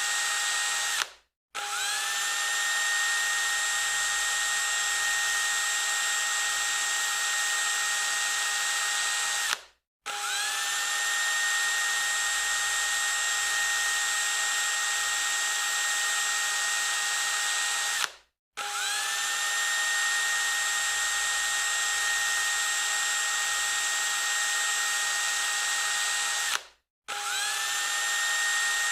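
Electric drill running at full speed with a steady high-pitched whine. It stops four times, about every eight seconds, and each time spins straight back up to speed.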